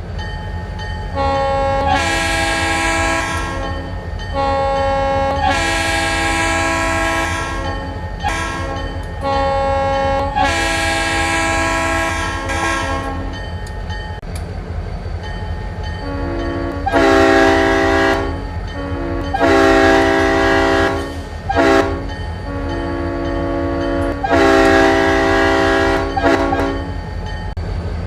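Locomotive multi-chime air horn sounding the grade-crossing signal (long, long, short, long) twice, the second time with a different chord, over a steady low rumble.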